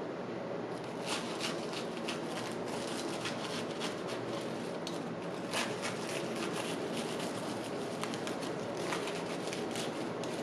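A serrated knife sawing through crisp, flaky pastry, giving many short, irregular crunches and crackles over a steady background noise.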